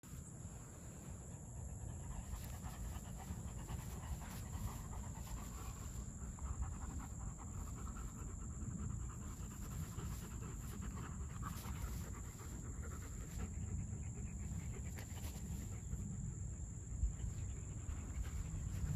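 Two German shepherds panting hard as they tug on a rope ball toy between them.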